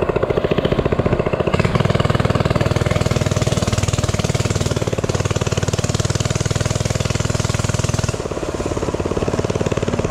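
Minibike engine running with a fast, even firing rhythm, opened up to a louder, harder note from about a second and a half in and easing back off the throttle near eight seconds.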